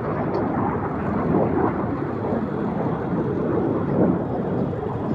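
Aircraft engine noise: a loud, steady rumble that drowns out the loudspeaker announcement.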